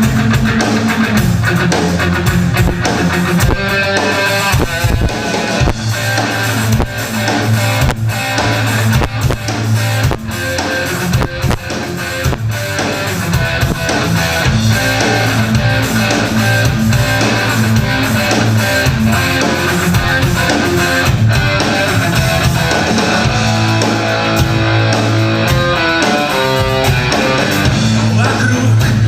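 Live rock band playing an instrumental passage: electric guitars over bass and a drum kit, loud and continuous.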